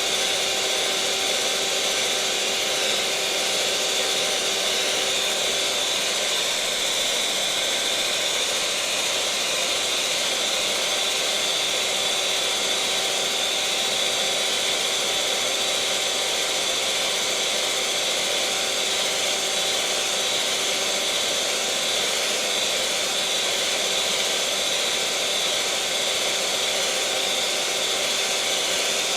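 Electric mixer motor running steadily at one constant speed: a continuous whir with a few steady tones in it.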